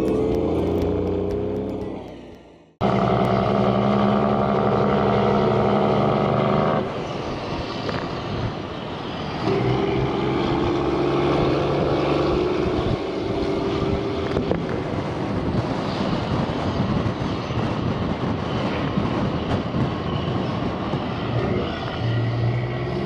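Background music fades out. After a short break, a Mack semi truck's diesel engine runs under way with road noise, its note stepping lower about seven seconds in and changing again a few seconds later.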